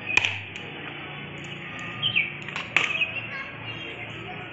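A coconut struck against a stone block to break it: one sharp crack near the start and two more close together a little past halfway. A bird's short falling chirps sound between the strikes.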